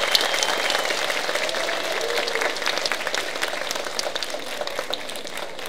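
Audience applauding, many hands clapping, the applause gradually fading away.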